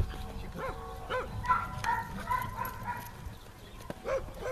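A dog yipping and whining: several short high yelps, with a longer held whine in the middle.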